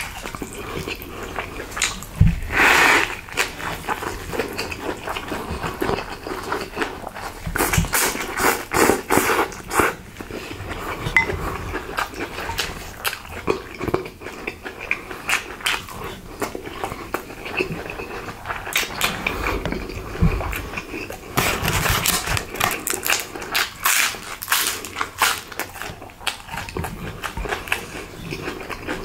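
Close-miked eating sounds: chewing and wet mouth noises, with many quick crisp clicks and crackles that come in busier spells a few times.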